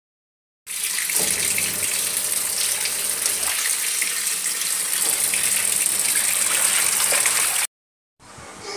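A stream of water gushing into the wash tub of a Whirlpool semi-automatic washing machine and splashing onto a load of clothes as the tub fills. It is steady, starts about a second in and cuts off abruptly near the end.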